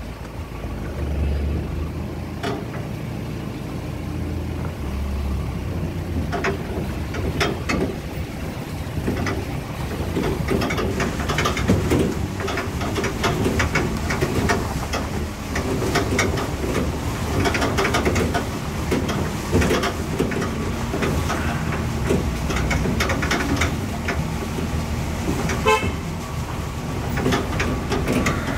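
A vehicle's engine running as it drives over a rough, muddy dirt track, with frequent knocks and rattles from the bumps.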